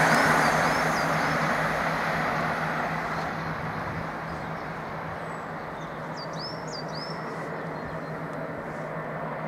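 Chiltern Railways diesel multiple unit pulling away, its engine and wheel noise fading steadily as it recedes down the line.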